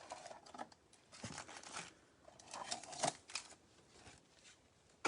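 Bowman Chrome trading cards and foil pack wrappers being handled: faint, irregular rustles and small clicks as cards are slid and sorted.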